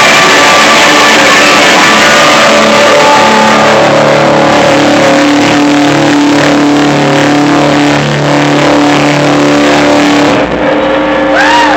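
Loud live band music with guitar, distorted and harsh in the recording, with long held notes through the middle. About ten seconds in the full sound drops away, leaving a thinner tail with a couple of short rising-and-falling tones.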